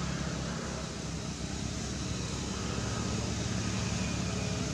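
Steady background noise: a low, even motor hum under a broad hiss, with no distinct events.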